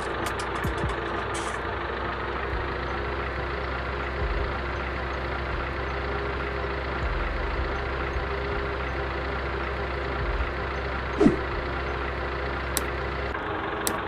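Engine running steadily at an even idle-like pace, with a low hum beneath. A brief sharp sound with a quick pitch sweep about eleven seconds in is the loudest moment.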